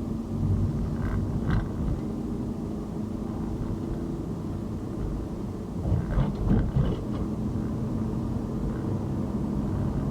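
Vehicle driving along a city road: a steady low rumble of road and engine noise with a constant hum, and a few short louder bumps about a second in and around six to seven seconds.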